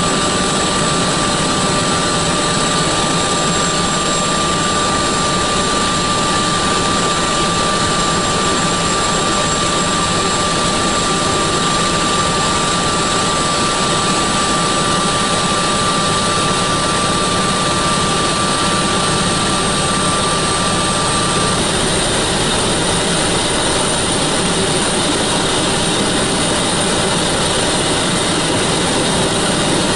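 Cockpit noise of an NH90 (Hkp 14) helicopter running: a steady loud roar of turbine engines and rotor, with a thin high whine on top that cuts out about two-thirds of the way through while the roar carries on.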